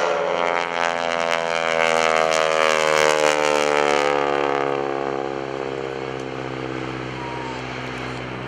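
North American SNJ Texan flying past: its Pratt & Whitney R-1340 radial engine and propeller swell to loudest about three seconds in, the pitch falling steadily as it goes by, then fading away.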